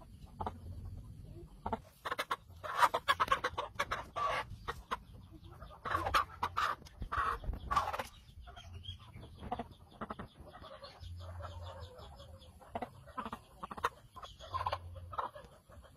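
Chicken squawking and clucking in loud clusters of rapid calls for the first half, then in quieter, shorter calls.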